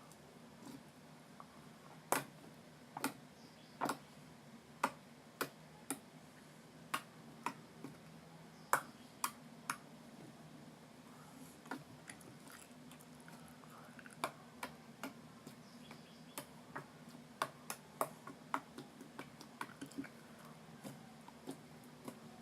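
Slime being squeezed and poked, giving sharp, irregular clicks and pops, about one or two a second, over a faint low hum.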